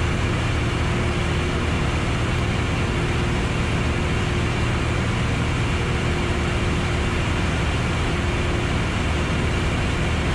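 Steady drone of a Piper Arrow's piston engine and propeller with airflow noise, heard inside the cabin in level cruise flight; a low hum with a faint steady tone above it, unchanging throughout.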